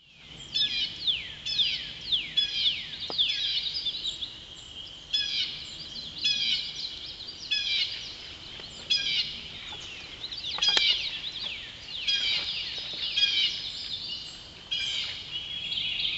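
Several songbirds singing over one another in a riverside wood: short repeated high phrases, many made of quick downward-sliding notes, following one after another with hardly a pause.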